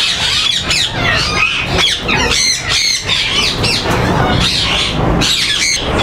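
A flock of caged ringneck parakeets squawking and screeching together: a dense chorus of many overlapping shrill calls that rise and fall.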